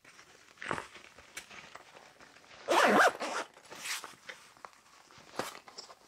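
The zipper of a Helikon-Tex EDC insert pouch being pulled closed in several short pulls, the longest and loudest about three seconds in.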